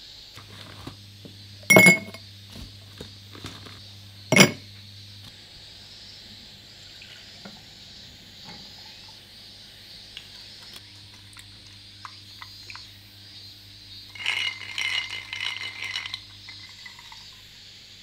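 Two sharp glass clinks about two and a half seconds apart, then yuzu sake poured from a bottle into a glass tumbler for about two seconds.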